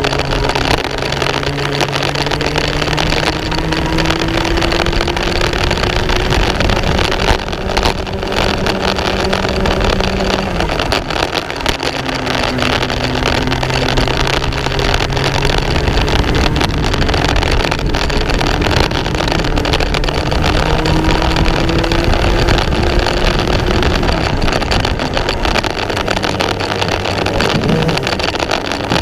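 Racing kart engine at race pace, heard onboard: its pitch climbs steadily for several seconds along the straights and drops away into the corners, a couple of times, over a steady rush of wind and track noise.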